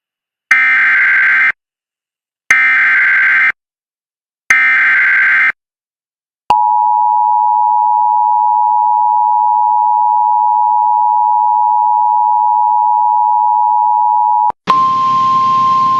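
Emergency Alert System tones: three one-second blasts of digital SAME header data about two seconds apart, then the steady two-tone attention signal for about eight seconds, cut off abruptly. Just before the end a single steady tone begins over radio hiss.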